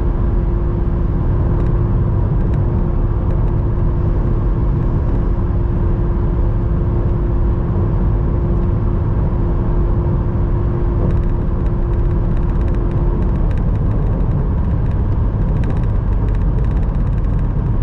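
Interior noise of a Honda Civic Hybrid at about 189 km/h on its top-speed limiter: a steady, loud rush of wind and tyre noise over a low rumble. A steady hum runs under it and stops about thirteen seconds in, after which the car slows.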